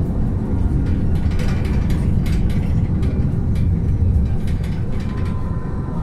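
Rapid-transit bus cabin in motion: a steady low rumble from engine and road, with frequent light rattles and clicks from the bus's fittings.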